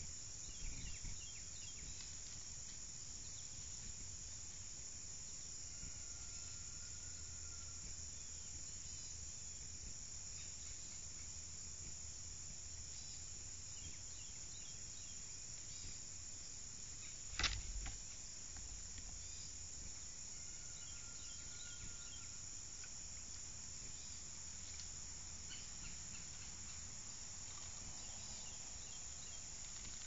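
Steady, high-pitched chorus of insects, with two faint held whistled notes and a single sharp click about seventeen seconds in.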